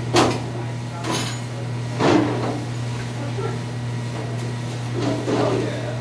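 Several metal clanks and knocks as the stainless steel hood of a commercial door-type dishwasher is raised, the loudest about two seconds in, over a steady low hum.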